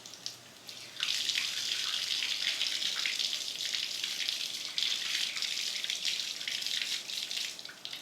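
Tap water running into a sink while hands are washed and rinsed. The flow comes on sharply about a second in and eases off near the end, with a few splashes and drips before it starts.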